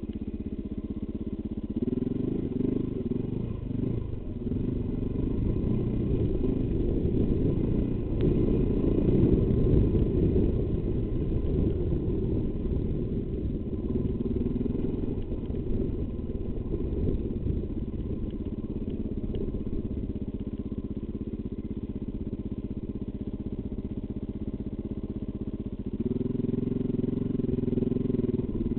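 Rally enduro motorcycle's engine running while being ridden along a rough dirt track, heard from on the bike. The revs and level rise about two seconds in, again around eight to eleven seconds, and once more near the end.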